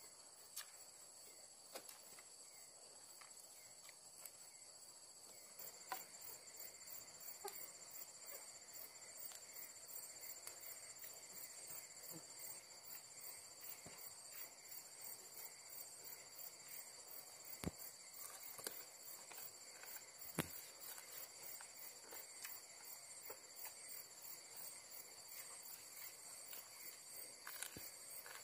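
Night insects trilling steadily at a high pitch, with a pulsing insect call joining about six seconds in. A few sharp clicks and taps come through, several of them in the middle and near the end.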